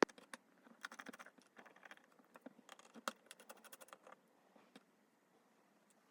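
Small repair tools clicking and scraping on the opened phone's internal parts: one sharp click at the start, then a quick run of light ticks and scratches for about three seconds.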